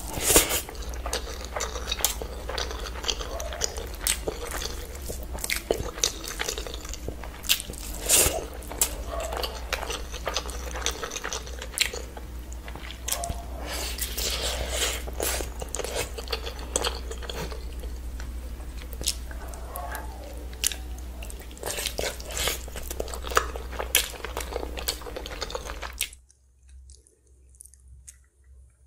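Close-miked eating sounds: wet chewing and biting with many sharp mouth clicks and crunches, as biryani rice and a curry-soaked chicken drumstick are eaten by hand. About 26 seconds in it drops to much quieter eating.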